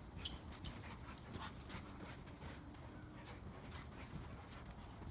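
Two dogs play-fighting on a trampoline: faint scuffling, with scattered short knocks and clicks throughout.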